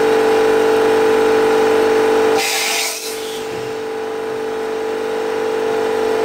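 Hardinge GX 600 CNC vertical machining centre running with a steady, multi-toned mechanical whine. About two and a half seconds in, a hiss lasting about a second cuts in over it, and the whine weakens briefly before carrying on.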